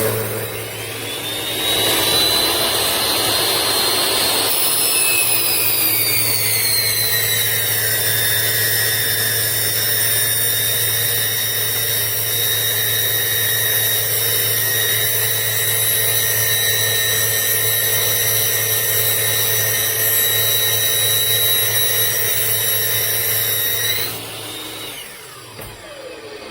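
Electric miter saw motor spinning up with a rising whine. A few seconds in, the whine drops in pitch and then runs steadily. Near the end it is switched off and the whine falls away as the blade winds down.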